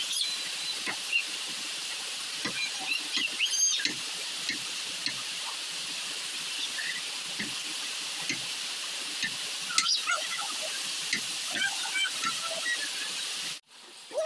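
Knife cutting raw pork on a wooden chopping board: soft, irregular taps against a steady high hiss with scattered high chirps. The sound cuts off abruptly near the end.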